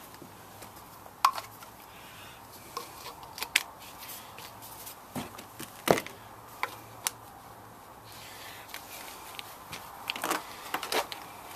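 Plastic PVC pipe and fittings of a homemade hand pump clicking and knocking as they are handled and fitted together: scattered sharp taps, the loudest about a second in and again near the middle, with a quick run of knocks near the end.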